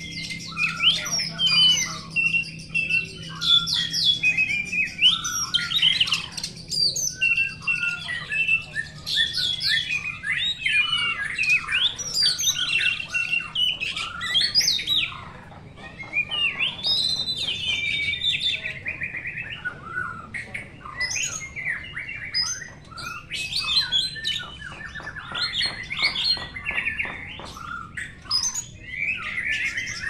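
Several caged oriental magpie-robins singing over one another without pause: a dense mix of loud whistled phrases, pitch glides and fast runs of repeated notes.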